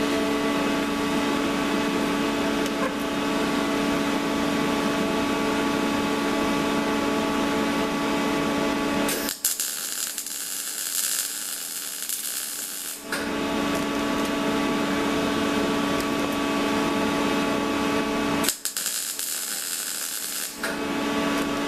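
Steady electrical hum, broken twice by the crackling hiss of a MIG welding arc: a run of about four seconds, then a shorter one of about two seconds, as tack welds are laid down.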